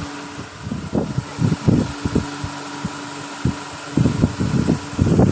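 A steady hum under irregular soft low thumps and rumbles, which turn dense and continuous about four seconds in.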